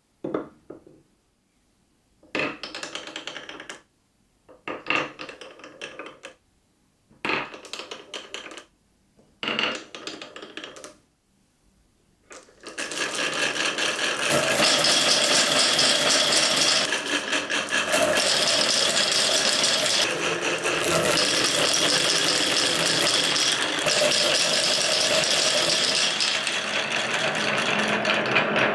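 A wooden knock, then four short bursts of glass marbles rattling into a wooden marble-run tray with wavy grooved lanes. About twelve seconds in, a large load of glass marbles starts rolling down the wavy wooden lanes in a dense, continuous rattle.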